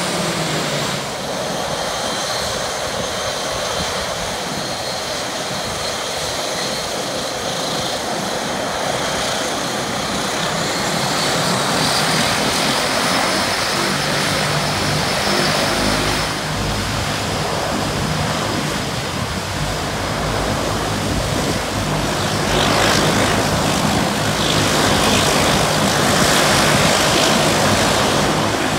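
Dash 8 twin turboprop's engines running, a turbine whine over a propeller drone. About a third of the way in the whine climbs and the drone grows louder as power comes up, and it is loudest near the end as the aircraft swings round to taxi.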